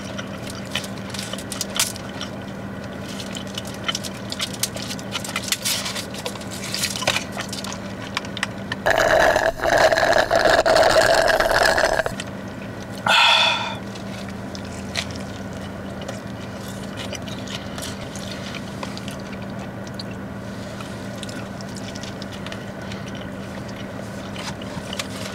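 Close-up chewing and mouth sounds of someone eating a burger. About nine seconds in comes a loud slurp of soda through a straw lasting about three seconds, then a second, shorter slurp a second later, over a steady low hum.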